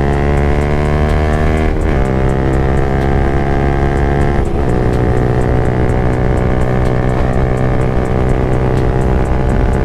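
Yamaha MT-15's single-cylinder 155 cc engine through an aftermarket Akrapovic exhaust, accelerating under load. The pitch climbs, then drops with an upshift about two seconds in and again about four and a half seconds in, then climbs slowly in the higher gear.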